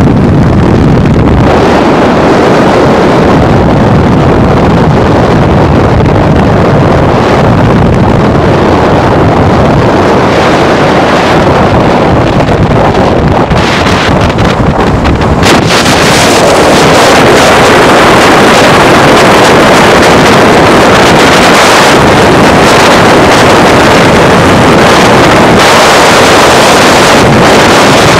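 Loud rush of wind and road noise from a car travelling at freeway speed, with wind hitting the microphone. About halfway through, the noise becomes brighter and slightly louder.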